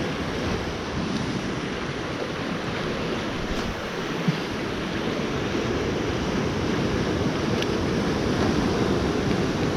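Ocean surf washing onto the shore, with wind buffeting the microphone: a steady rushing noise.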